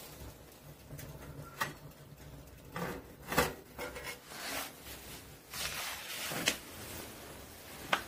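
Steel cooktop lid of a Duil Stove TXT-MiniQueen wood stove being set back over the fire hole with a metal lid lifter: several light metallic clinks and scrapes, the loudest about three and a half seconds in, and a sharp click near the end.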